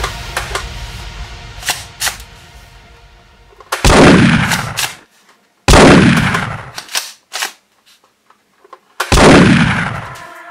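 Three shotgun blast sound effects, each a loud sudden bang with a falling boom that dies away over about a second, the second coming about two seconds after the first and the third about three seconds later. A few light plastic clicks from the toy pump-action shotgun come before them.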